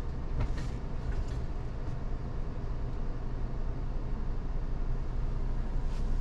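Steady low engine hum, with a few faint clicks near the start and near the end.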